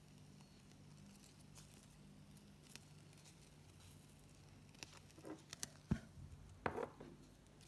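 Faint rustling of satin ribbon being handled and folded in the fingers, with a few light clicks and taps between about five and seven seconds in, over a low steady hum.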